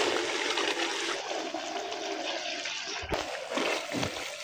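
Boiled split lentils poured into hot fried masala in a clay pot, sizzling and hissing steadily.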